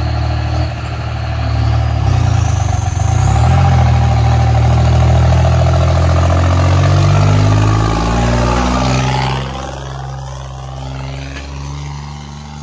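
John Deere 5050D diesel tractor engine running hard, puffing black smoke, growing louder as it comes closer. About nine seconds in, the pitch falls and the sound eases as it passes by.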